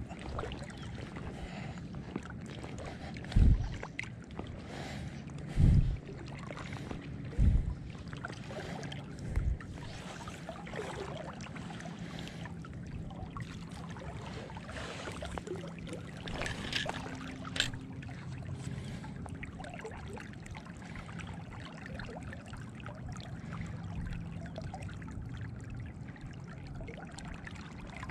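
River water lapping and swirling around a wading angler, with four loud, low thumps in the first ten seconds and a couple of sharp clicks near the middle.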